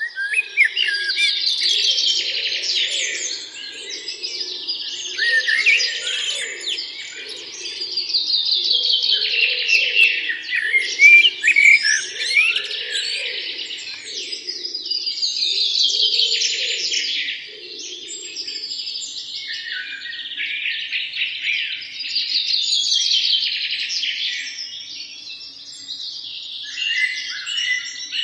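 Songbirds chirping and singing in busy, rapid phrases that swell and fade every few seconds. A fainter, lower pulsing sound runs underneath for the first two-thirds, then stops.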